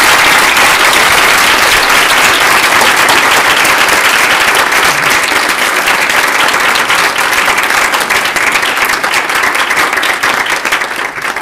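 Small audience applauding, with one pair of hands clapping close by. The applause thins out over the last few seconds, individual claps standing out, and stops just at the end.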